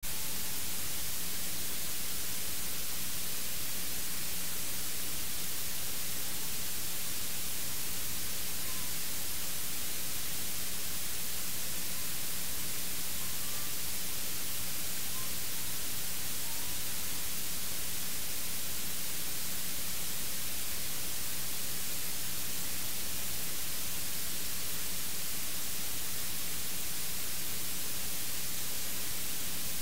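Steady electronic hiss and static from an open audio feed, with a faint low hum underneath.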